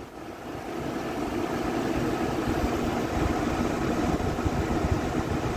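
Keystone window air conditioner running on high fan with the compressor on: a steady hum and rush of air that grows a little louder over the first second, then holds steady.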